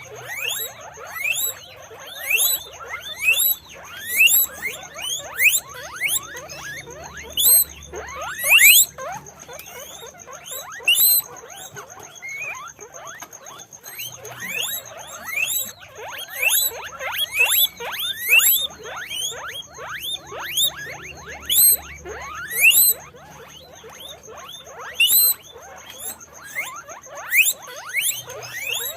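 Guinea pigs squeaking: many short, rising whistles, several a second and often overlapping, with louder clusters every few seconds.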